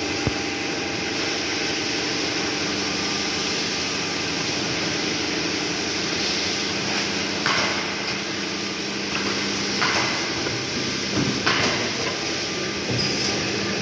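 Automatic edge banding machine running with a steady mechanical hum, with several sharp knocks and clacks in the second half.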